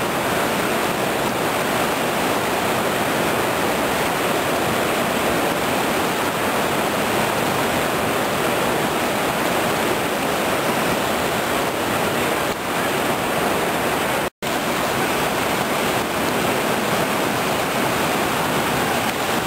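Whitewater rapids of a mountain river rushing steadily, a loud, even wash of water noise. The sound cuts out for an instant about two-thirds of the way through.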